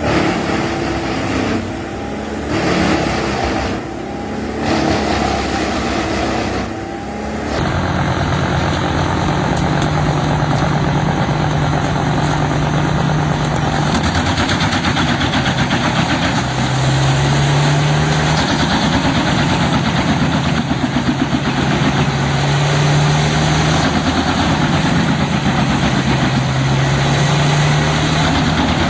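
Large wood chipper's engine running under load, with a sudden change in the sound about seven seconds in and then a steady drone whose pitch rises and falls slightly.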